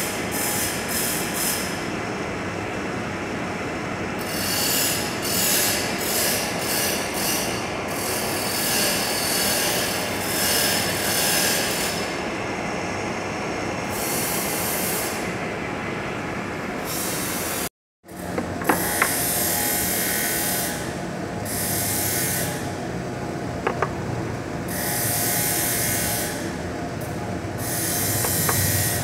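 Metal lathe running, turning a metal bar into an air-hose nipple, with a hiss that swells and fades at intervals as the tool cuts. The sound breaks off abruptly about two-thirds of the way through, then resumes with a few sharp clicks.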